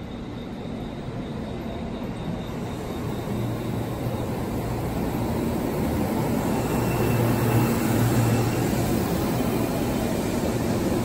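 Ueno-Tokyo Line electric commuter train pulling into the platform and passing close by, the running noise of its wheels and motors growing steadily louder as the cars go past.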